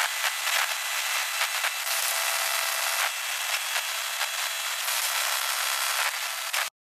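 A thin, crackling static hiss with no low end, sprinkled with small pops, that cuts off abruptly about a second before the end.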